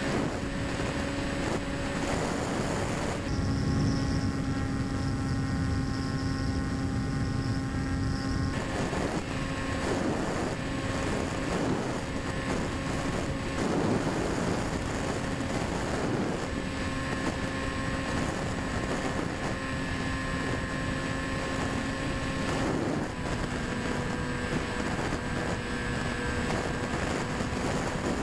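Quanum Observer FPV plane's electric motor and propeller droning at a steady pitch in flight, with wind rushing over the onboard microphone. The wind rumble is heavier from about three to eight seconds in.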